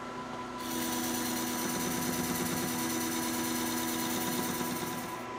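Metal lathe cutting the side of a spinning cast iron plate with a carbide insert. The hiss of the cut starts about half a second in over the lathe's steady hum and dies away just before the end.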